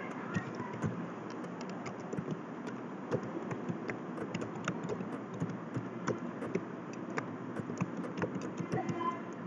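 Typing on a computer keyboard: irregular keystroke clicks over a steady background hiss.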